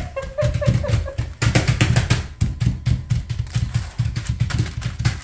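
Rapid, uneven thumps of fists pounding pecans sealed in plastic zipper bags against a stone kitchen countertop, crushing the nuts.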